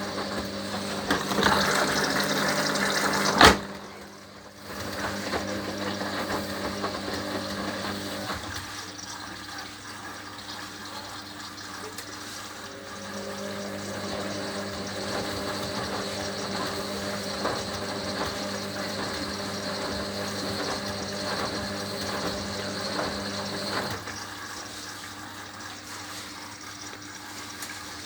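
Hoover HLW585DC washer-dryer on its final rinse: water rushing in as it fills, cut off by a sharp click about three and a half seconds in. Then the machine's motor hums on and off as the drum turns, stopping for a few seconds in the middle and again near the end.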